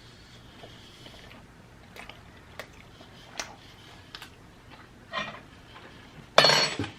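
Close-miked mouth sounds of someone eating a chili cheese dog: scattered wet clicks and smacks of chewing, then a short, loud voiced sound near the end.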